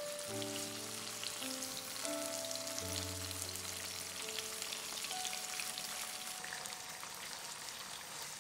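Slices of tofu sizzling in hot oil in a wok, a steady hiss with fine crackling pops as they fry until the undersides brown. Soft background music plays underneath.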